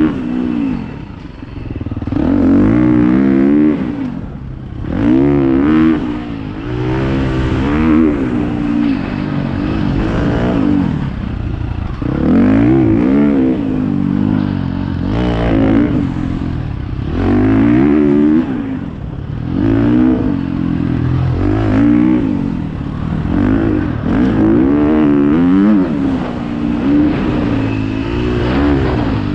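Dirt bike engine revving up and dropping back again and again, a rising then falling pitch every second or two as the throttle is worked on and off.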